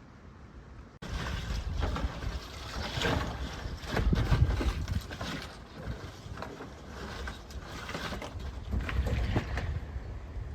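Wind buffeting the microphone outdoors, a loud uneven rumble, with scattered knocks and rustling; it starts abruptly about a second in.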